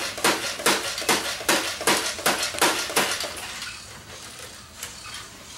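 Plastic foam-dart toy blaster clicking over and over as its mechanism is worked, about two or three sharp clicks a second. The clicks thin out and fade after about three seconds. The blaster is out of darts and will not fire.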